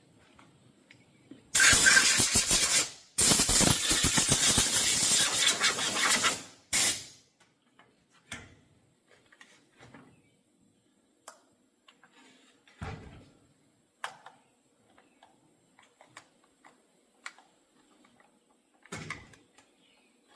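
Pressurised spray hissing in two long blasts and a short third one, cleaning oil fouling off a chainsaw. A few light knocks and clicks of handling follow.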